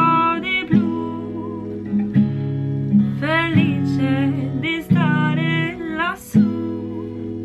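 A woman singing an Italian song to her own steel-string acoustic guitar, strumming chords with a capo on the neck. The chords land about every second and a half, and the sung phrases come and go over them.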